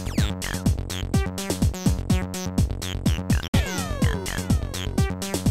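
Amiga demo soundtrack: sample-based electronic tracker music with a steady drum-machine beat. About three and a half seconds in it cuts out for an instant, then comes back with falling pitch sweeps.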